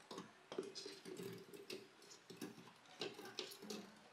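Whole strawberries dropping from a plastic plate into a plastic blender jug, pushed along by a spatula: a faint, irregular run of soft knocks and taps.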